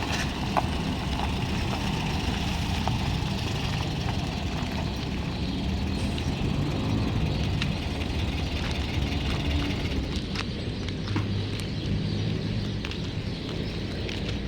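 Volkswagen Kombi engine running steadily, with a few faint ticks. It has none of the sound of a compression leak, and the owners hear it as normal.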